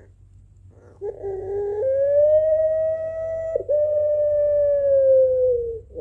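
Puter pelung dove cooing its long call: a short low note about a second in, then one long, drawn-out held note of about four seconds, broken briefly midway and sinking slightly at the end.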